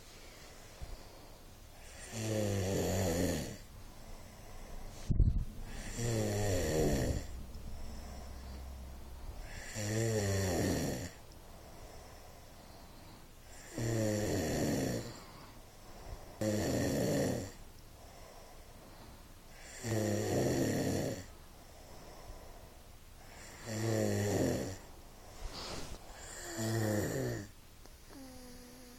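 Snoring during sleep: eight loud snores, one about every three to four seconds, each about a second long and falling in pitch as it goes. A single sharp click comes about five seconds in.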